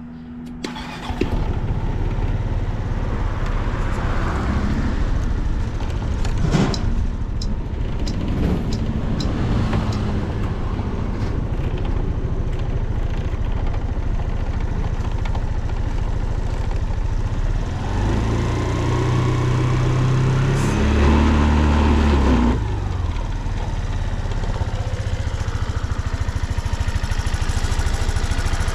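Suzuki Address V125S scooter's single-cylinder four-stroke engine starting about a second in, then idling, with a short rev around four seconds and a longer higher rev from about eighteen seconds that drops back to idle at about twenty-two seconds. It runs without any unusual noise.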